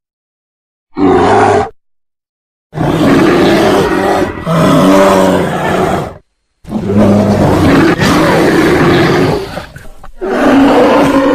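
A bear roaring in a series of separate roars: a short one about a second in, then three long roars of a few seconds each. Each starts and stops abruptly, with dead silence between them.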